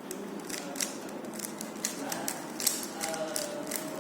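Rubik's cube being turned rapidly by hand: a quick, irregular run of plastic clicks as the layers snap round.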